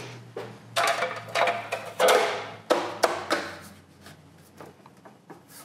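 A rigid G9 melamine glass-reinforced plastic sheet being set down and shifted on a milling machine table, knocking and clattering several times with a short ringing after each, the loudest knock about two seconds in. Quieter scuffing follows as the sheet is pressed into place.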